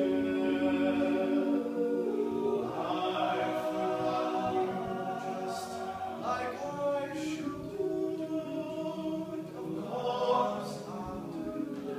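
Male a cappella group singing in close harmony, holding chords that move from note to note, with no instruments.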